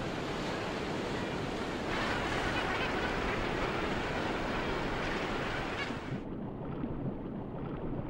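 Ocean surf washing and breaking as a steady rush of water. About six seconds in it changes abruptly to a duller, muffled wash heard from underwater.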